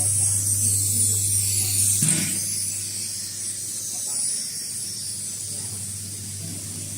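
Mask valve ultrasonic welding machine standing powered: a steady electrical hum that stops with a short knock about two seconds in, over a steady high hiss.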